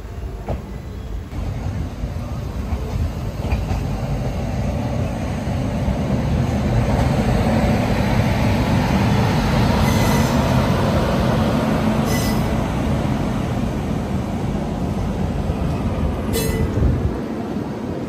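Express train running, heard from an open coach door: a steady rumble of wheels on the rails that grows louder over the first several seconds as it gathers speed, with three sharp clicks in the second half.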